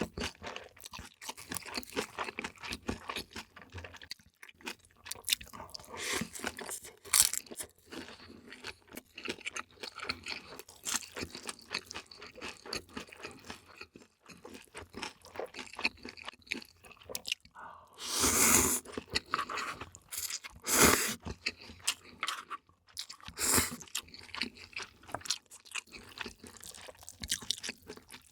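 Close-miked eating: a person chewing and crunching food, with many small wet mouth clicks. There are three louder, longer noisy bursts about two-thirds of the way through.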